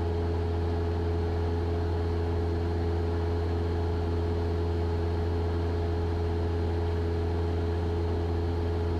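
Cessna 172's piston engine and propeller droning steadily inside the cabin in cruise flight, with no change in pitch.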